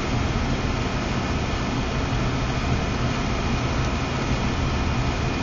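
Steady mechanical drone with a low hum, even and unchanging, with no separate sounds standing out.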